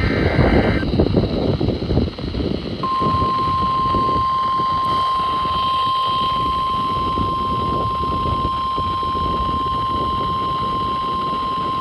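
NOAA Weather Radio alert signalling for a warning. The last SAME header data burst, a warbling two-tone screech, ends about a second in. About three seconds in, the steady single-pitch 1050 Hz warning alarm tone starts and holds for about nine seconds, all over heavy radio static.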